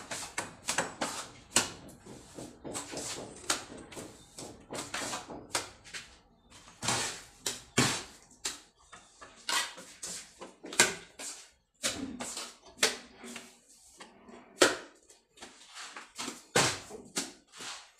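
Steel plastering trowel working cement mortar against a metal hawk and the block wall: a long, irregular series of short scraping and slapping strokes, several a second, as render is scooped and spread.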